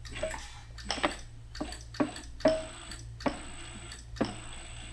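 Light irregular ticks and taps as a sheet-metal panel is handled and positioned against a bead roller's dies, about one every half second to a second, over a low steady hum.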